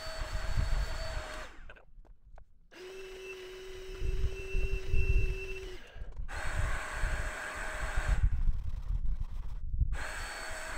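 Vax SpotWash Duo carpet cleaner's motor running with a steady whine as its nozzle works a car floor mat. It cuts out abruptly twice, and the whine is lower in pitch in the stretch between the cuts. An uneven low rumble runs underneath.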